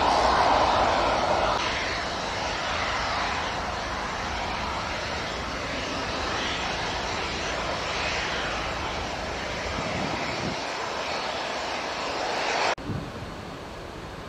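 Boeing 747's jet engines running as the freighter taxis, a steady jet noise that is loudest in the first second or two as it passes close. About thirteen seconds in the sound drops suddenly to a quieter, duller noise.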